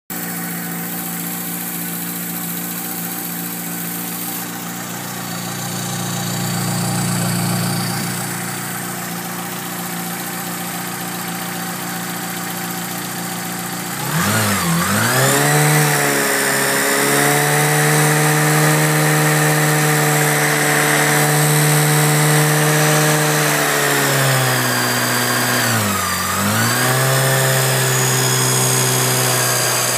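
Volkswagen Polo G40's supercharged 1.3-litre four-cylinder engine. It idles with injectors tapping, belts whining and the low burr of its G-Lader supercharger. About halfway through it is revved up and held at raised revs, with a brief dip in revs near the end.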